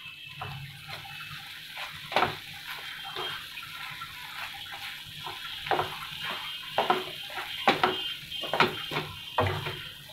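Wooden spatula stirring thick, bubbling tomato chutney in a frying pan, scraping and knocking against the pan at irregular intervals, more often and louder in the second half, over the steady simmer of the sauce.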